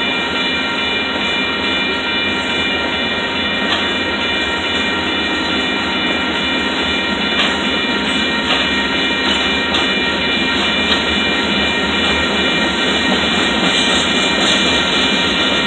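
Covered hopper cars of a freight sand train rolling past at steady speed: continuous wheel-on-rail rolling noise with a steady high ringing over it and a few faint clicks.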